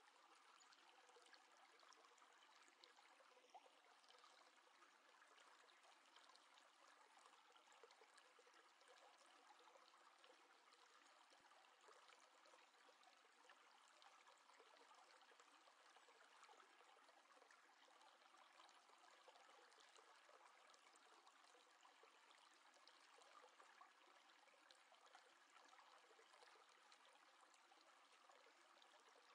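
Near silence: a faint steady hiss with tiny scattered crackles.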